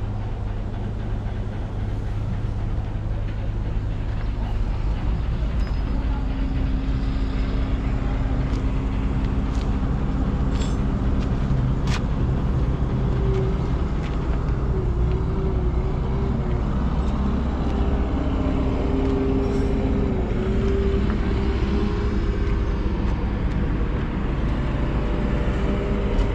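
Asphalt paver's diesel engine running steadily. About six seconds in the sound picks up slightly and a higher whine joins in, wavering in pitch for a while in the middle.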